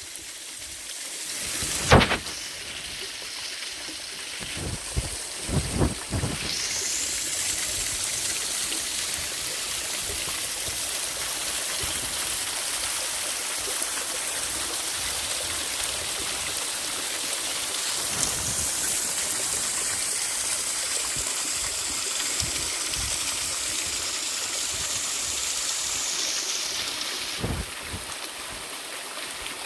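Running water, a steady rush that sets in about six seconds in and drops away near the end, with a few knocks before it.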